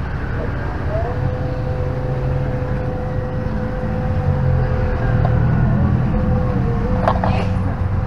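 A motor vehicle running nearby: a low engine rumble with a steady hum over it, and a few light clicks near the end.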